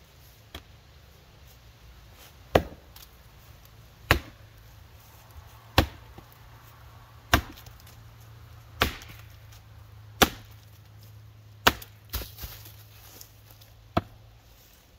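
A six-pound Council Tool FE-6 axe chopping into a standing block of wood: eight sharp, heavy blows about one every second and a half, with a lighter knock just after the seventh.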